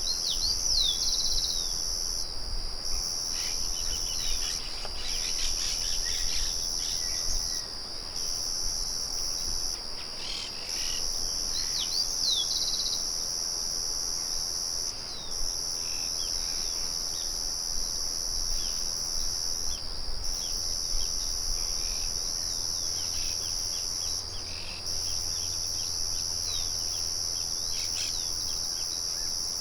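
Crickets trilling in a steady high-pitched chorus that breaks off briefly every couple of seconds, with birds chirping over it, most busily in the first dozen seconds. A faint low rumble runs underneath.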